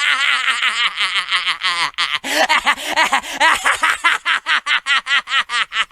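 A cartoon boy's voice laughing hysterically and without a stop, in rapid pulses about five a second, with a short catch of breath about two seconds in.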